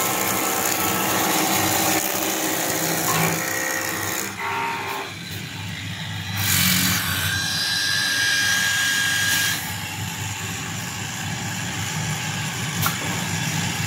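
Combination wood moulder and multi-spindle drilling machine running, its motors and cutter heads giving a steady mechanical whine. The sound thins out about four seconds in, comes back louder a couple of seconds later, and eases again near ten seconds. There is a short click near the end.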